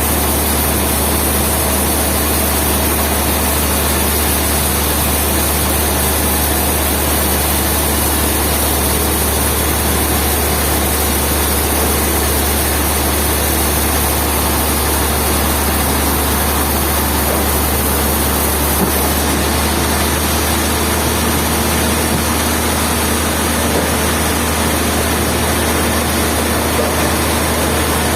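Heavy sawmill machinery running: a loud, steady drone with a deep hum under an even hiss, unchanging throughout.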